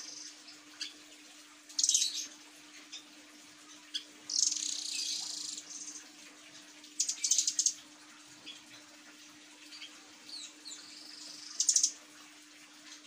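Caged blue nuthatch (rambatan doraemon) calling: four loud bursts of high, rapid trilling, the longest about four and a half seconds in, with scattered single high chips between them.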